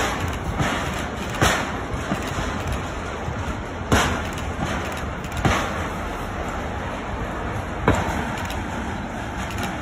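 Loaded flat wagons of a freight train rolling slowly past: a steady rolling rumble, with the wheels clacking sharply over the rail joints every second or two.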